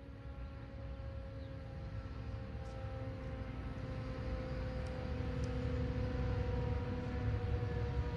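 Outdoor warning siren holding a steady chord-like tone that sags slightly in pitch and grows gradually louder, over a low rumble.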